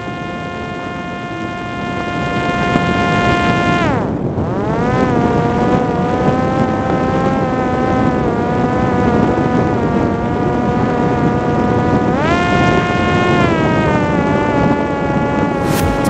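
Parrot Disco fixed-wing drone's electric motor and rear propeller whining steadily in flight, with air rushing past the airframe. The pitch dips sharply about four seconds in and recovers to a lower steady note, then rises about twelve seconds in and eases back down.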